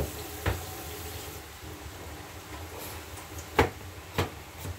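Kitchen clatter: four sharp knocks of utensils or cookware, one about half a second in and three close together near the end, over a steady low background hum.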